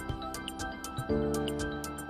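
Background music: held synth chords over light, ticking percussion, moving to a new chord about a second in.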